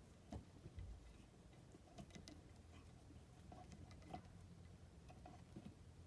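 Near silence with faint, irregular light clicks and taps from handling fly-tying tools and materials at the vise.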